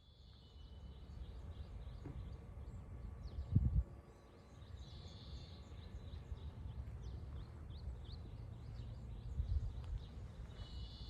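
Small birds chirping in short high notes, with a buzzy trilling call repeated about every six seconds. Under it runs a steady low rumble, with one louder thump about three and a half seconds in.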